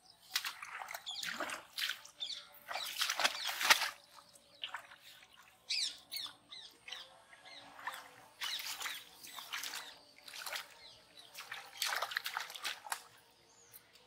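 Water splashing and sloshing in several short bursts, from a freshly caught fish flapping in a metal basin of water and from wading in the shallows. The loudest bursts come in the first four seconds.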